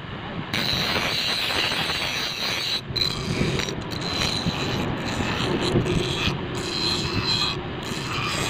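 Bench grinder running with a small steel knife blade held against its spinning wheel, a steady rasping hiss of grinding. The grinding breaks off briefly several times.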